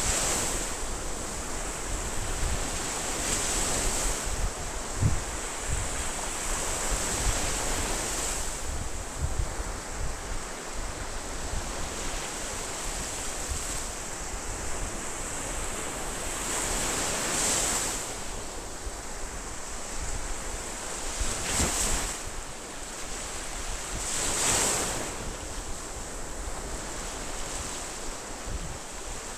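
Ocean surf: waves breaking and washing in on a shore, swelling in a louder rush every few seconds over a steady hiss, with low wind rumble on the microphone.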